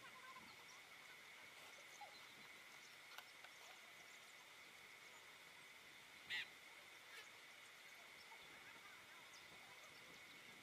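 Near silence outdoors: a faint steady high-pitched tone with a few faint, scattered bird chirps, and one short, louder call about six seconds in.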